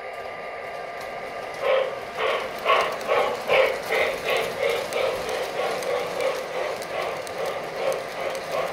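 O-gauge model steam locomotive (MTH Railking J3a Hudson) with its onboard sound system chuffing as the train pulls away. The chuffs start about two seconds in and quicken to about three a second.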